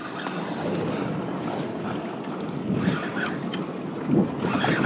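Wind buffeting the microphone over open sea water sloshing against a kayak hull: a steady rush, a little louder about four seconds in.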